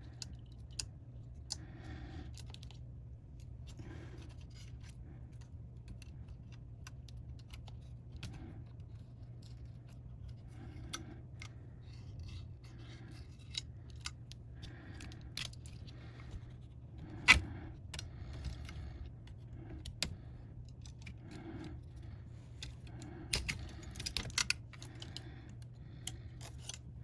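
Scattered small clicks and metallic taps of a screwdriver, tiny screws and parts being handled while a MacBook Pro 16 is taken apart, over a steady low hum. The sharpest click comes about two-thirds of the way through, with a quick cluster of clicks near the end.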